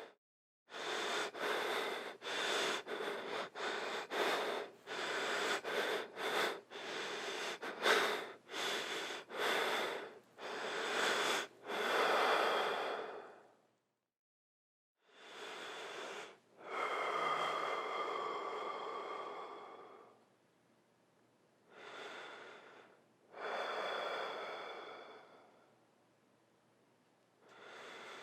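A person breathing heavily: quick, rapid breaths in and out, about one and a half a second, for roughly the first half. After a brief silence come slow, long breaths with pauses between them.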